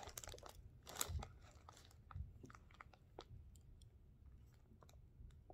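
Faint handling noise: small clicks and crackles of fingers turning a ring, a few slightly louder ones about one and two seconds in.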